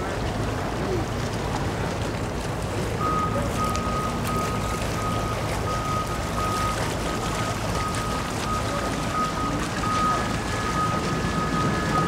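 Boat engines idling under steady wind and water noise. From about three seconds in, a high electronic beep repeats steadily about twice a second, joined near the end by a second, higher tone.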